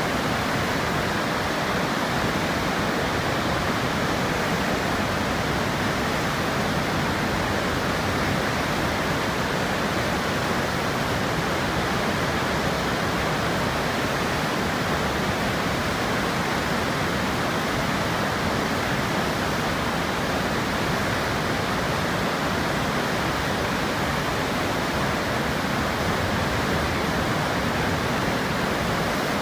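Water pouring over a dam spillway, a steady unbroken rush of falling water with no change in level.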